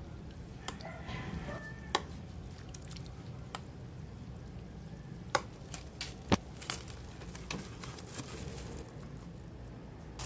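Spoon stirring thick, creamy buko salad in a glass bowl: soft wet squishing with a few sharp clinks of the spoon against the glass.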